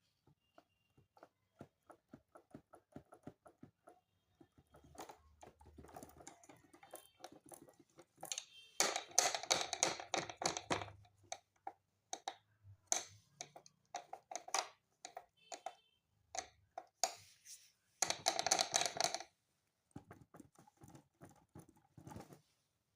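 Small plastic clicks and taps of hands working on a digital piano's key-and-hammer action, with two longer, louder stretches of dense clattering about nine seconds and eighteen seconds in.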